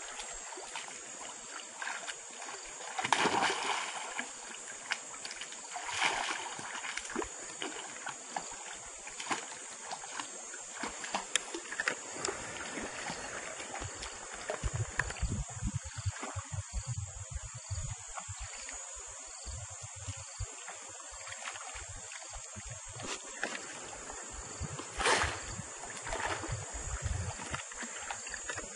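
Vervet monkeys splashing as they swim and play in a river, the loudest splashes a few seconds in and again near the end, over a steady high buzz of insects. Bouts of low rumbling run through the second half.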